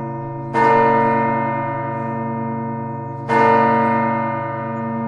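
Church bell striking the hour at noon: two strikes about three seconds apart, each ringing on and slowly fading, with the bell's low hum carrying on between them.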